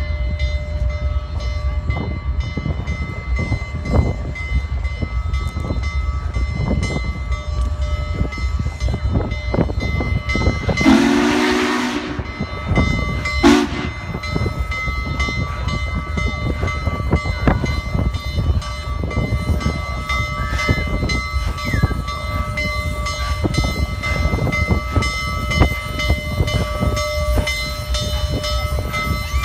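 Union Pacific 844, a 4-8-4 steam locomotive, rolls slowly with a steady low rumble. About eleven seconds in, its steam whistle sounds a chord for about a second, then gives a short toot about two seconds later.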